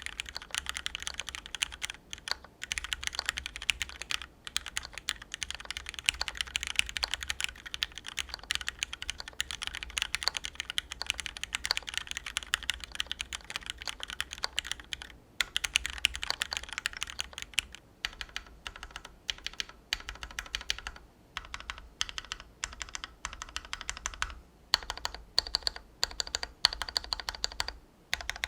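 Fast typing on a Vulcan X KBDfans MAJA mechanical keyboard built with linear Cherry MX Black switches on a brass plate and GMK keycaps: a dense run of keystroke clacks broken by a few brief pauses.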